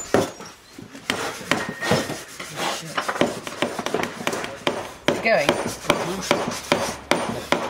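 Mallets striking turned wooden chair legs and spindles, driving them into a wooden seat: a fast, irregular run of hard wooden knocks, several a second.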